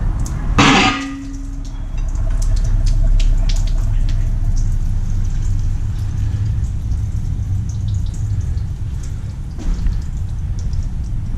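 A single loud metallic clank about a second in, ringing briefly, over a steady low rumble, with scattered small clicks and taps: metal engine parts being handled during an engine teardown.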